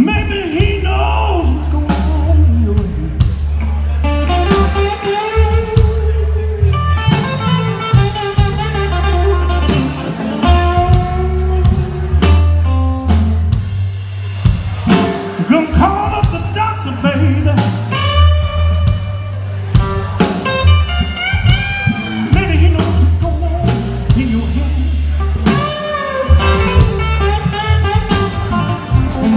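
Live blues band playing: a strong electric bass line and drum kit, with a lead melody bending up and down in pitch over them.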